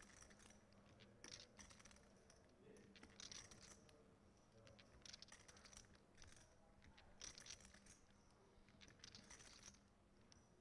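Near silence with faint, scattered clicking of poker chips being handled at the table.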